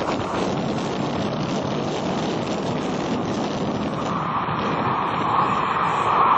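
Jet airliner engines running, growing louder from about four seconds in as a steady rushing tone builds.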